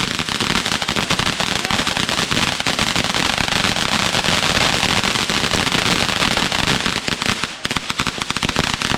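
A ground firework crackling continuously: a dense, rapid stream of small pops, thinning out and faltering near the end.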